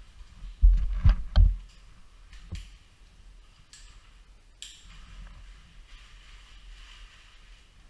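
Three heavy knocks in quick succession about a second in, followed by a few sharp, separate clicks, while a caver aid-climbs the rock.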